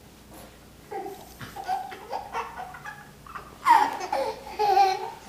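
A toddler laughing and babbling in short bursts, the loudest about three and a half seconds in and another near the end.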